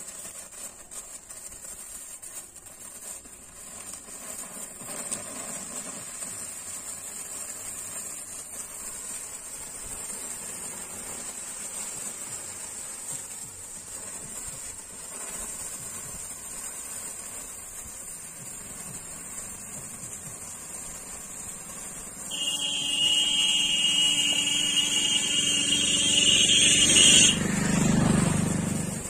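Several handheld sparklers fizzing and crackling with a steady hiss. About 22 seconds in, a much louder steady high tone with a lower hum under it starts; it cuts off suddenly about five seconds later, followed by a brief low rumble.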